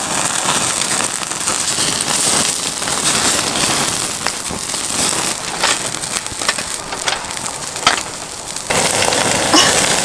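Open wood fire crackling under a grill grate: a steady hiss with many sharp, irregular pops.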